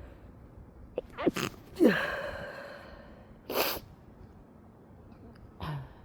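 A person sneezing in a fit set off by chhinkni, a Nepali herbal snuff. A couple of quick voiced catches of breath lead into one loud sneeze about two seconds in, its tail trailing off. It is followed by a sharp breathy burst about a second and a half later and a shorter, softer burst near the end.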